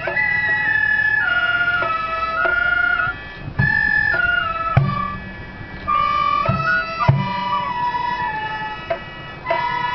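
Gagaku ensemble playing bugaku dance music: a reedy wind melody held in long notes that step and bend in pitch, over steady high sustained chords, with about four low drum strokes in the middle.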